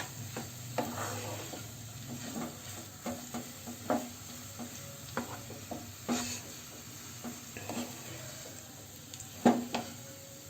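A spatula stirring and pressing crumbled boiled potatoes in a frying pan with a little hot oil, making irregular scrapes and taps against the pan over a faint sizzle. One louder knock comes near the end.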